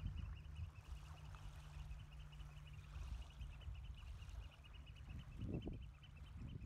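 Quiet lakeshore air: low wind rumble on the microphone with a couple of gusts near the end, under a faint, rapid, steady series of high bird notes. A low steady hum stops about two-thirds of the way in.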